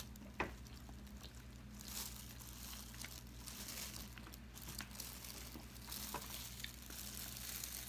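Faint eating sounds: chewing with a few scattered light clicks, the clearest about half a second in, over a low steady hum.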